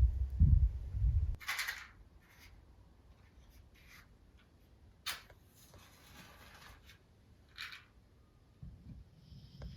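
A low rumble in the first second, then a few short scrapes and clicks at irregular intervals, like small things being handled.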